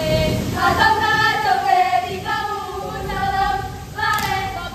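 Female voices singing a sustained chant melody in unison for the Ratoh Jaroe seated dance, with hands slapping on chests and thighs underneath.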